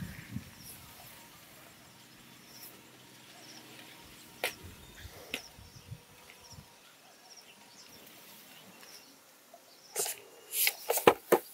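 Quiet outdoor background with two sharp knocks about a second apart as a person steps up onto a wooden stool. Near the end comes a quick run of loud, sharp sounds.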